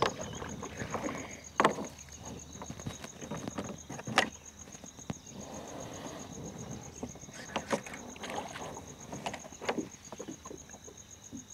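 Water lapping against a plastic kayak hull, with scattered sharp clicks and knocks from the rod and baitcasting reel as a hooked fish is reeled in.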